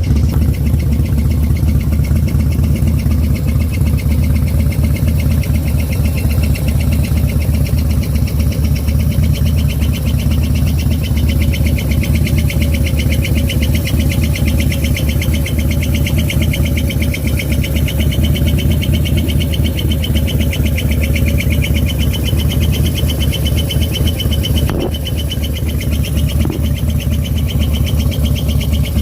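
2009 Harley-Davidson Fat Bob's 96 cubic inch Twin Cam V-twin idling steadily, with a rapid plunging, squishing noise from near the cams. The noise comes from defective hydraulic lifters.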